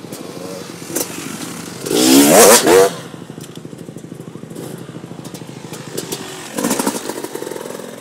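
Motocross bike engine running at idle, revved hard for about a second around two seconds in, with another shorter, louder burst near the end.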